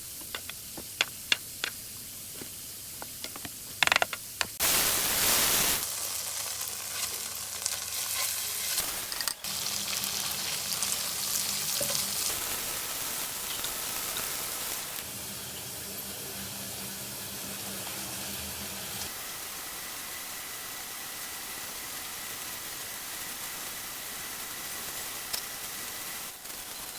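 Shrimp fried rice frying in a hot pan. A few sharp clicks and knocks come first, then a loud burst of sizzling about four and a half seconds in, settling into steady sizzling that slowly dies down.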